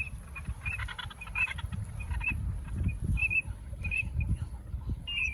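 Waterfowl calling in many short, repeated high notes, over a low, uneven rumble.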